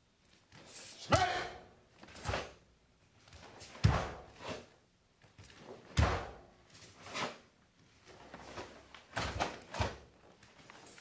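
Karate kata movements: bare feet thudding and stamping on a wooden floor as the cotton gi snaps and swishes with each block and strike. The sharp strokes come roughly every one to two seconds, about seven or eight in all.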